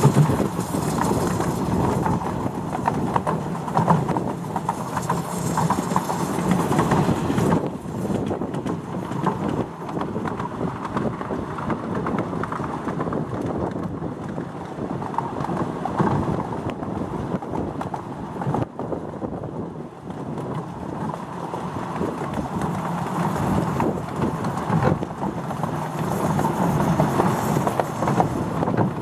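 7¼-inch gauge miniature steam train running along the track, heard from its open passenger carriages: a steady rumble of the wheels with repeated clicking over the rail joints.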